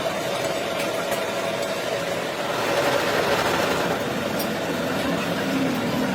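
An engine or motor running steadily amid a noisy background, getting a little louder about two and a half seconds in.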